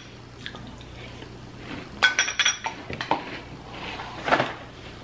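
Metal spoons clinking against cut-glass cereal bowls: a quick run of ringing clinks about two seconds in and a few more just after, with a short noise near the end.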